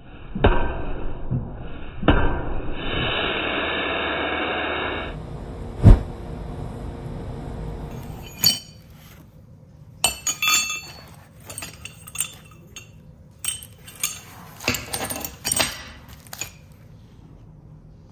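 A few hard strikes over a steady rushing noise as red-hot steel is worked at the anvil, with one very loud strike about six seconds in. From about eight seconds, steel roller-bearing races clink and clatter against each other in short irregular bursts as they are handled.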